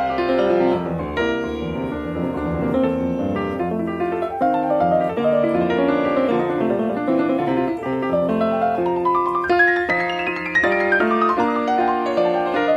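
Piano music, a flowing run of notes, with a quick rising run up the keyboard about nine seconds in.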